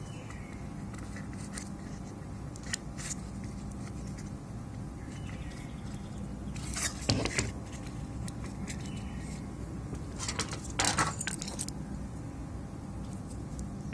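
Small metal tools and parts clicking and clinking on a repair bench, with two louder bouts of clatter about halfway and about three-quarters of the way through, over a steady low hum.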